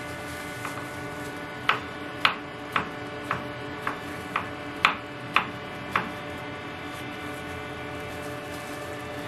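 Kitchen knife slicing through a tomato and striking a wooden cutting board: nine sharp taps, about two a second, starting about two seconds in and stopping about two-thirds of the way through. A steady electrical hum runs underneath.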